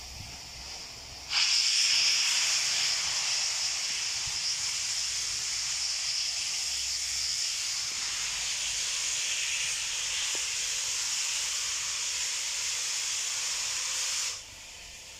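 British Railways 34081, a Bulleid Battle of Britain class steam locomotive, venting steam: a steady hiss that starts suddenly about a second in and cuts off sharply near the end.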